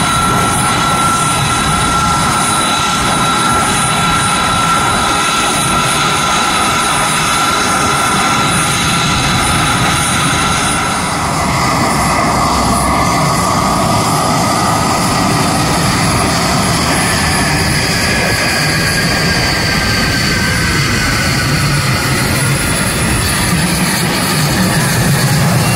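The twin Pratt & Whitney F119 turbofans of an F-22 Raptor running at ground idle: a steady high whine over a rushing noise, the whine shifting in pitch about halfway through.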